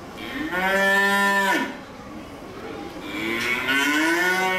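A cow mooing twice, each a long call of about a second and a half that rises a little and then falls away.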